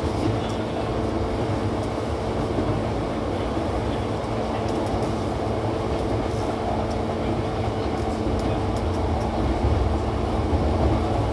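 Running noise inside a JR East E235 series 1000 electric train car: a steady rumble of wheels on rail with a constant low hum, growing slightly louder near the end.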